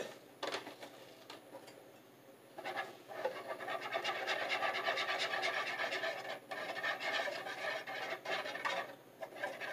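Wire whisk beating flour into milk for pancake batter in a bowl: a steady, scratchy rasp of the wires rubbing the batter and the bowl, starting about three seconds in.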